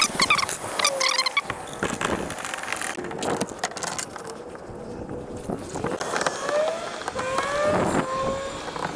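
Gear being handled and loaded into a fishing kayak: scattered knocks and clatter, with a few short squeaks near the start and in the last few seconds.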